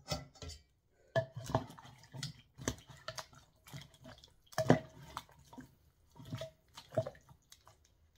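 A utensil stirring beef stew in a slow-cooker pot, clinking and knocking against the pot's sides with wet sloshing. The knocks come unevenly, about two a second, and the loudest is about halfway through.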